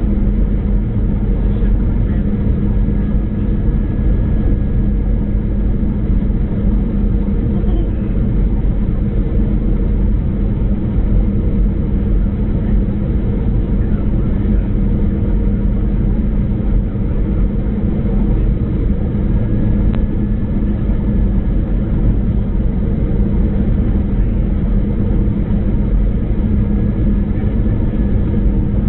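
Steady cabin noise inside an Airbus A319 airliner on final approach: engine and airflow rumble with a steady low hum, unchanging throughout.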